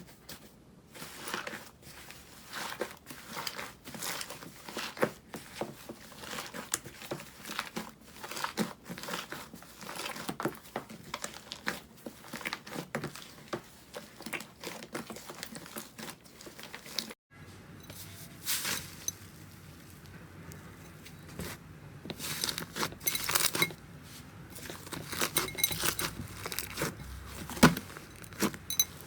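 Slime being squeezed and poked by hand close to the microphone: a dense run of small crackling clicks and pops. It breaks off abruptly about seventeen seconds in, then more slime play follows with a fuller, lower sound.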